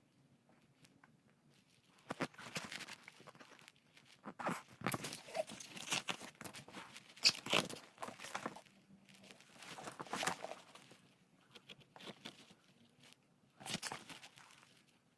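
Wrapping around a book being torn and crinkled in irregular bursts of rustling as it is unboxed.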